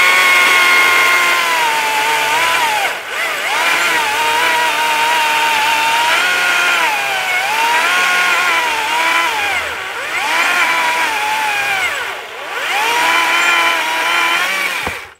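Stihl MSA 140 C 36-volt battery chainsaw running flat out and cutting through a log under light pressure. Its high whine sags in pitch several times as the chain bites, recovers each time, and cuts off suddenly near the end.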